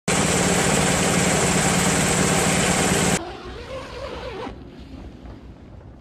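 A loud engine running steadily, cutting off abruptly about three seconds in and leaving only faint background sound.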